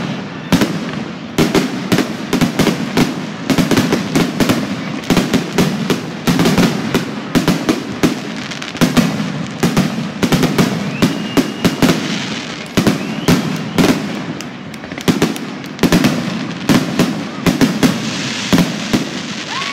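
Aerial fireworks going off in quick succession: many sharp bangs and crackles, one after another, over a continuous low rumble.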